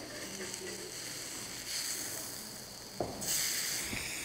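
Tofu slabs sizzling on a hot cast-iron grill pan as they are turned with a spatula; the sizzle swells a little under two seconds in and again, louder, after a short knock about three seconds in.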